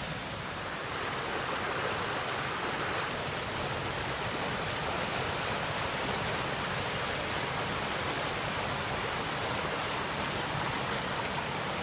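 Floodwater pouring over a river weir in spate: a steady rush of water with no let-up.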